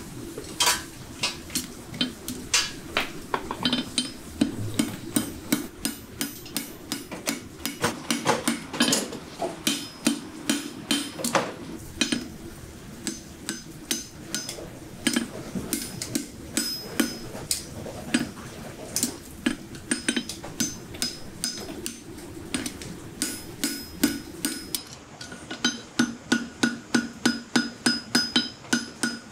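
Hand hammer striking a red-hot steel bar on a steel anvil as it is bent and shaped into a horseshoe: sharp ringing blows in irregular runs, becoming a fast steady series of about three or four blows a second near the end.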